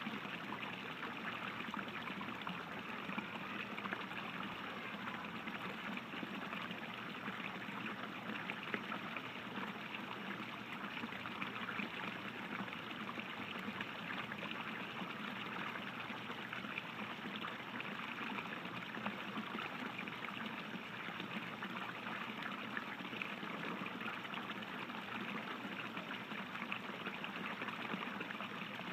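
Water from a fountain's arcing jets splashing steadily into the pool below, an even, unbroken rush.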